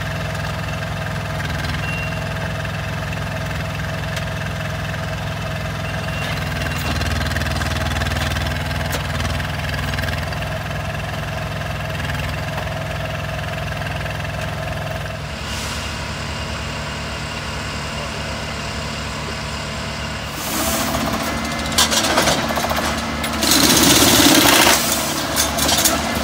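Engines of rail-mounted track maintenance machines running steadily. From about 20 seconds in, louder metallic knocks and clatter join, with a loud hiss of about a second and a half near the end.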